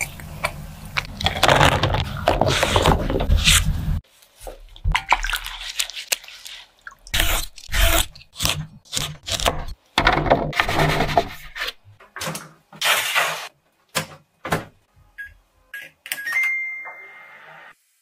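Kitchen handling sounds of food preparation: a dense stretch of rustling and scraping that cuts off suddenly about four seconds in, then scattered taps, clicks and rustles, with a brief high steady tone near the end.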